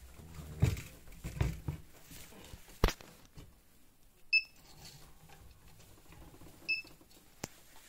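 Doersup 12.7 handheld inkjet marking printer being handled against rubber hose: knocks and sharp clicks as it is set down and positioned, then two short, high electronic beeps from the printer a little over two seconds apart.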